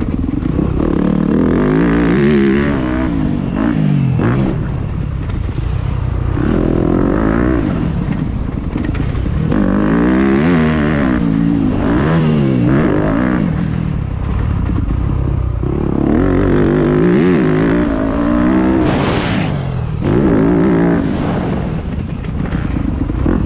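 Motocross dirt bike engine revving up and shutting off again and again as it is ridden round the track, its pitch climbing and dropping every few seconds, heard from a camera on the bike.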